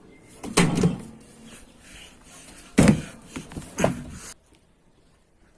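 Two loud bangs about two seconds apart, each followed by a short rattle, then a couple of smaller knocks; the sound cuts off suddenly near the end.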